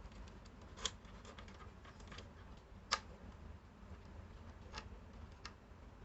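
Scattered light clicks and ticks, with two sharper ones about one and three seconds in and fainter ones near the end.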